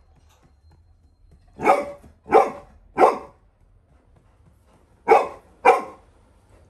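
Labrador retriever barking in guard at a stranger at the door: three loud barks in quick succession, a pause, then two more.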